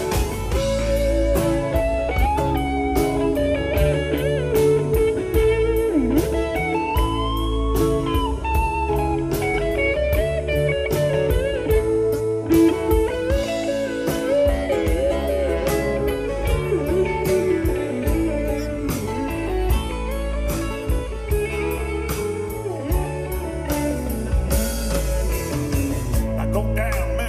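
Live band playing an instrumental break: an electric guitar solo with bent notes over bass guitar and drums.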